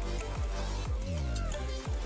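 Electronic dance music with a heavy bass line and a steady beat, with a falling pitch sweep about a second in.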